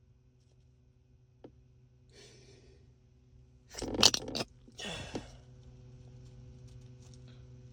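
A man sneezing once: a breathy intake about two seconds in, the loud sneeze about four seconds in, then a shorter breathy burst just after it.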